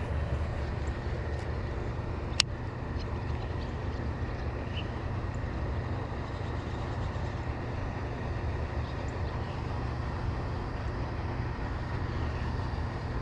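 Wind buffeting the microphone: a steady low rumble, with a single sharp click about two seconds in.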